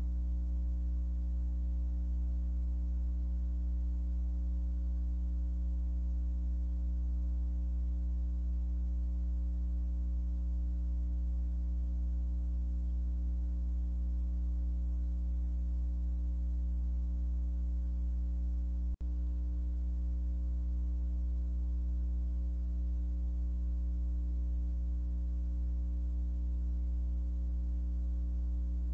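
Steady low electrical hum in a security camera's audio, with several fixed overtones above it. The hum breaks briefly once, about two-thirds of the way through.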